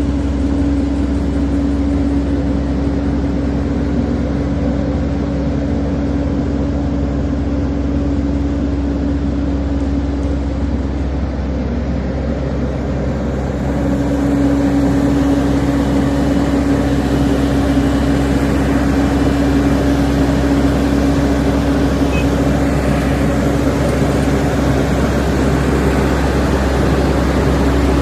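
Diesel engine of a heavy earthmoving machine, a bulldozer or wheel loader, running steadily under work. It gets a little louder about halfway through.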